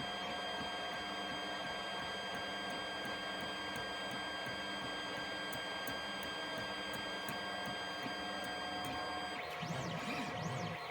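3D printer's stepper motors whining in several steady tones as the print head lays down black PLA. Near the end the pitch starts to rise and fall in quick arcs as the head changes speed.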